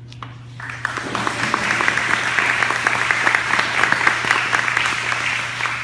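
An audience clapping, a dense patter of hand claps that starts about a second in and thins out near the end.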